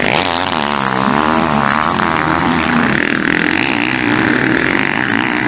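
Motocross bike's engine revving hard through a turn, its pitch rising and falling with the throttle, then settling to a steadier, harsher note as it passes.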